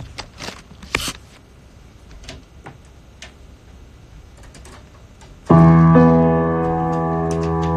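Scattered light clicks and taps, then about five and a half seconds in a keyboard chord is struck and held, sounding steadily.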